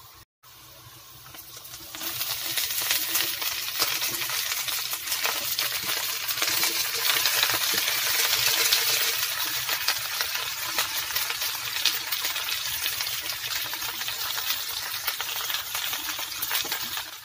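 Pork and pinakbet vegetables (okra, bitter melon, eggplant, squash, string beans) sizzling and crackling in hot fat in a pan. The sizzling jumps much louder about two seconds in and then stays loud and steady.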